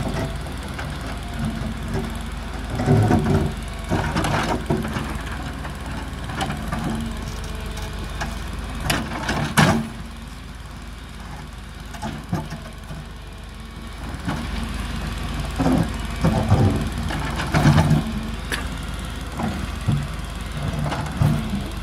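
JCB tracked excavator's diesel engine running steadily, with repeated louder spells of working noise and sharp knocks and scraping as the bucket digs into earth and rubble.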